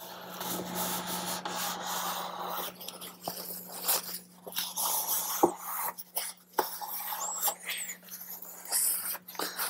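Paper towels rubbing and scrubbing over a plastic saddlebag lid, wiping off excess silicone in irregular strokes with a few light ticks. A steady low hum runs underneath.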